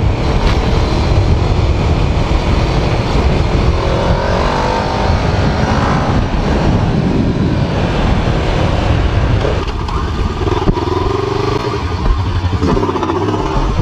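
Kawasaki Ninja 650 parallel-twin engine with an Akrapovic exhaust, heard from the rider's seat on the move, rising in pitch as it accelerates about four seconds in and again later on. Heavy wind rush on the microphone runs under it.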